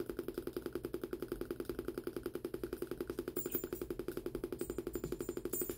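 Small speaker clicking in a rapid, even train, driven by an Arduino Uno's digital pin switched on and off with a delay() loop. The delay is being shortened, but the pulses are still slow enough to be heard as separate clicks rather than a note.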